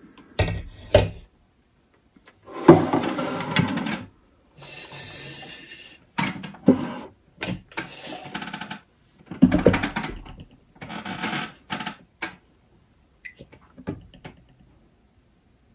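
Hands handling a Humminbird fish finder head unit and its power cable: plastic knocks, rubbing and scraping in irregular bursts, with a few light clicks near the end.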